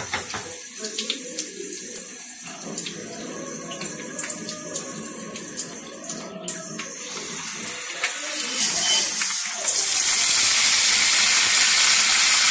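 Whole dried red chillies frying in hot oil in a pan, a steady sizzle. About ten seconds in, the sizzle turns suddenly much louder and harsher as fresh green leaves go into the hot oil and it foams up.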